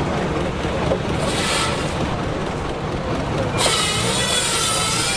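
Case steam engine running a sawmill, a steady low rumble; about three and a half seconds in, a loud high hiss with a wavering whine cuts in over it.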